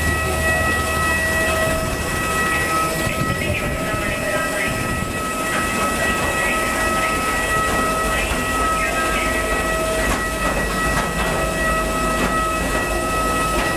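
Steady whine of aircraft turbines over a low rumble, several high pitches held level, as heard on an airport apron beside a parked airliner.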